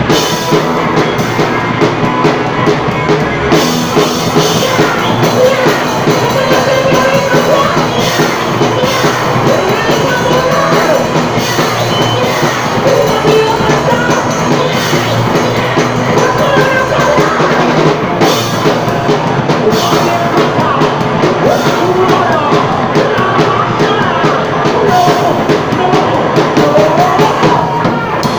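Live band playing a rock song: drum kit with a sung melody over the band, loud and continuous.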